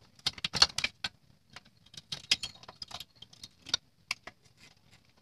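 Pliers and small metal parts clinking at the exhaust mounting of a Vespa PX engine: irregular sharp metallic clicks and rattles, a cluster of louder ones in the first second.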